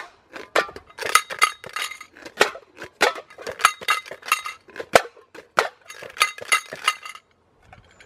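Two homemade tin-can shakers, one filled with small pebbles and one holding a single big rock, shaken together: a clattering, clinking rattle of stones against metal, about three shakes a second, stopping near the end.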